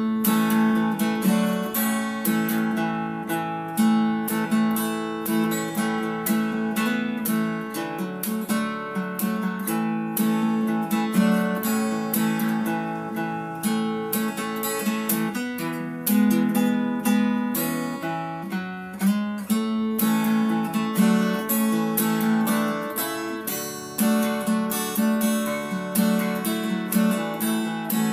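Background music: strummed and plucked acoustic guitar with a steady rhythm.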